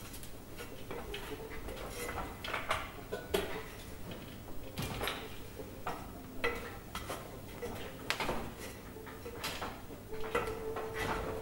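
Aluminium scaffold tubes being gripped and climbed, giving irregular metallic clanks, clicks and knocks. Near the end a steady humming tone comes in.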